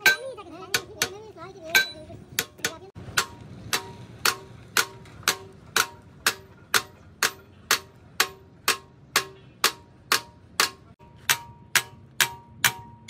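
Hammer striking steel in a steady rhythm, about two ringing metal blows a second.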